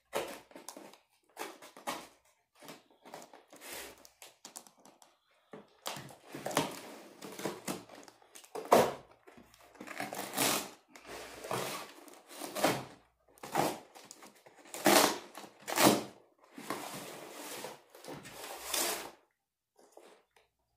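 Flimsy cardboard mailing box being slit open with a blade and its top pulled apart: light scrapes and ticks at first, then louder tearing and crinkling of cardboard in irregular bursts, stopping near the end.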